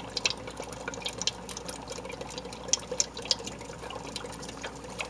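Dry ice bubbling in a glass of soapy water: a steady fizzing with many irregular little pops as the gas foams up through the dish-soap water.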